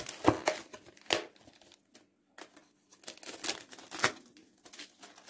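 Paper seed packets crinkling and rustling as they are handled, with a few sharp crackles: the strongest near the start, about a second in, and about four seconds in.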